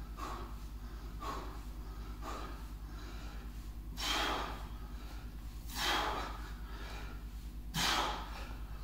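A man breathing hard from exertion: quick, faint exhales about once a second, then three louder, forceful blows about two seconds apart.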